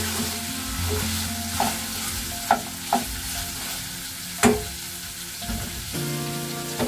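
Food sizzling in hot oil in a pot while a wooden spoon stirs it, the spoon knocking sharply against the pot four times, loudest about four and a half seconds in.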